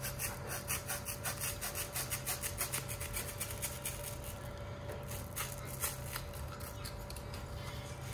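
Utility knife blade sawing through a sheet of foam: quick rasping strokes, about six a second, thinning out to a few scattered strokes after about three and a half seconds.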